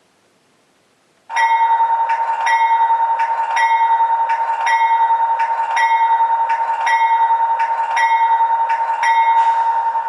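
Recorded GE-type steel locomotive bell ringing from a model locomotive's sound decoder through a small onboard speaker. It starts about a second in and rings steadily, with about two strikes a second over one sustained tone.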